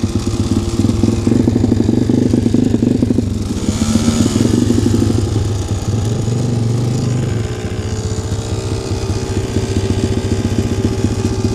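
Motorcycle engine running as the bike rides along, revving up and back down about four seconds in, then settling to a steady idle in the second half.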